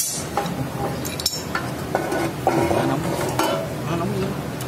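Adjustable wrench clinking and scraping against a metal drain fitting at the bottom of a screw air compressor's oil pipe as the fitting is worked loose, with a sharp metallic clank at the start and another about a second later.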